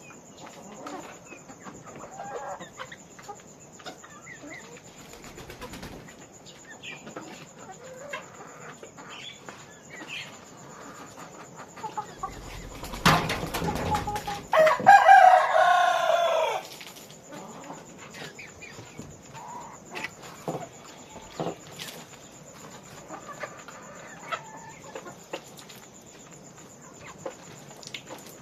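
Chickens clucking on a poultry farm, many short calls scattered throughout. Halfway through a loud burst of noise comes, then a rooster crows once, a long call falling in pitch at its end.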